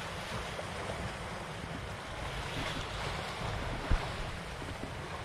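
Sea waves washing and splashing against concrete tetrapod breakwater blocks, with wind buffeting the microphone. A single sharp knock about four seconds in.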